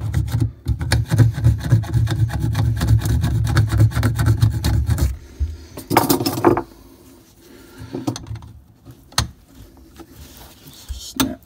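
Hacksaw blade sawing through a copper water supply pipe, with rapid back-and-forth strokes for about five seconds before it stops. A short burst of noise follows about six seconds in, then a few light clicks.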